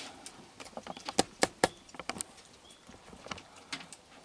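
Several raccoons feeding and moving about on a wooden deck: irregular sharp clicks and taps, a quick cluster in the first two seconds, then a few scattered ones.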